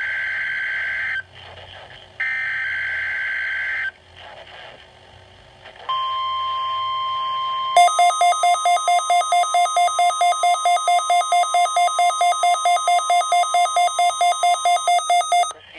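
NOAA Weather Radio SAME digital header, a harsh burst of data tones, sent twice with a pause of about a second between. Then the steady 1050 Hz warning alarm tone starts about six seconds in, which sets off the alert alarms of weather radio receivers. Nearly two seconds later a receiver's alarm starts beeping fast over it, about four beeps a second, and both stop together near the end.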